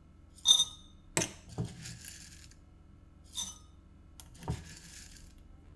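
Dry rabbit food pellets being poured and clinking into a ceramic bowl: several separate sharp clinks, two of them ringing, and a short rattle about two seconds in.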